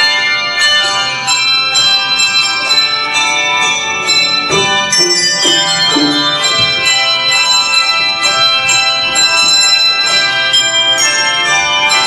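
Handbell choir playing a piece: many handbells struck one after another, their clear tones overlapping and ringing on.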